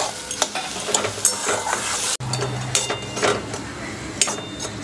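Metal spatula stirring, scraping and mashing boiled green peas in a metal kadai, with irregular clinks and knocks of metal on the pan over a faint sizzle.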